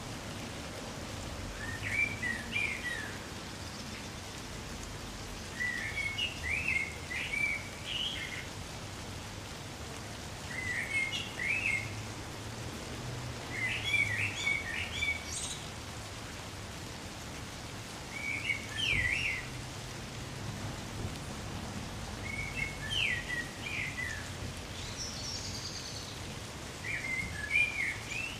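Light rain falling steadily, with a songbird singing short chirpy phrases every few seconds over it.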